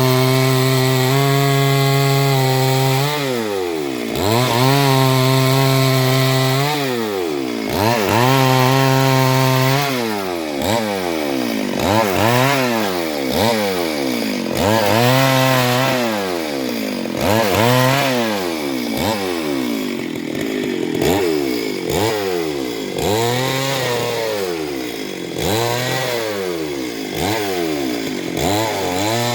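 Chainsaw engine running at high revs, then revving down and back up over and over, about every one and a half to two seconds, as the throttle is eased and squeezed again while cutting wood.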